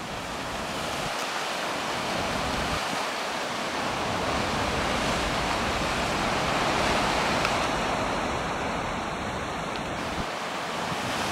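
Storm waves breaking over a rock and concrete-block breakwater and churning through a harbour entrance: a continuous rush of surf that builds a little toward the middle and eases slightly near the end.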